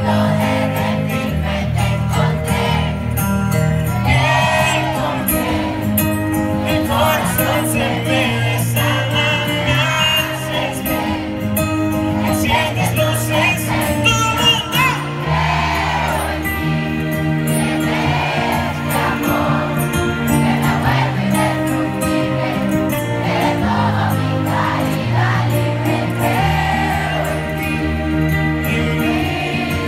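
A live pop ballad: a male singer over acoustic guitar and a sustained bass line, recorded from among the audience, with the crowd's voices singing along.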